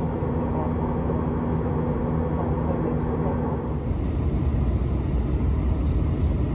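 Jet airliner cabin noise in flight: a steady low roar of the engines and rushing air, heard from inside the cabin. A steady droning hum rides on it and stops a little past halfway through.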